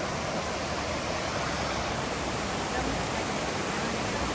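Small waterfall and mountain stream rushing steadily, an even unbroken roar of falling water.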